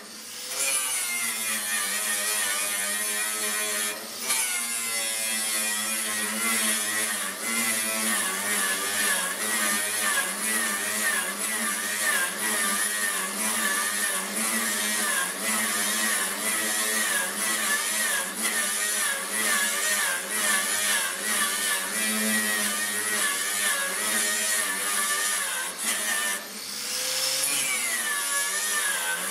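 Electric angle grinder with a wire brush scrubbing rust off a steel sheet: a steady high motor whine over the scratching of the wire on the metal, wavering as the tool is pushed across the plate. Twice, about four seconds in and near the end, the whine dips and climbs back up.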